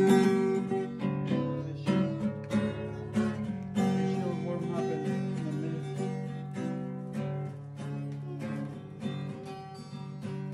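Acoustic guitar played by hand: chords strummed and notes picked, each ringing out and fading before the next.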